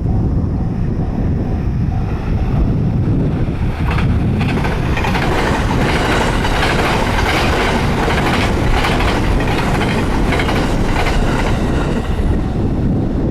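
A train passing close by a level crossing, rumbling steadily. About four seconds in it breaks into dense, rapid clickety-clack of wheels over rail joints, which eases near the end. The crossing's warning bell rings in quick even pulses at first and is then drowned out by the train.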